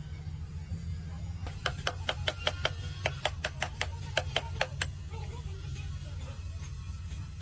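A quick run of light, slightly ringing metallic taps, about five a second for roughly three seconds, over a steady low hum. The taps are typical of hand tools working metal parts during a truck gearbox repair.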